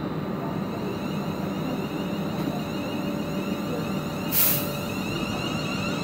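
EMR Connect Class 360 electric multiple unit moving along the platform: steady running noise of wheels and motors with a faint whine, and a short hiss of released air about four and a half seconds in.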